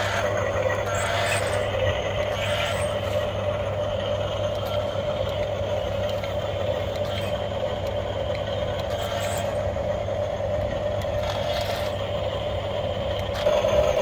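Electric motors and plastic gears of a toy radio-controlled cement mixer truck whirring steadily, growing louder near the end as the truck comes close.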